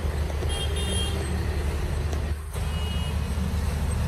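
Steady city road-traffic rumble with a few short high beeps about half a second in and again near three seconds; the sound drops out briefly just before the middle.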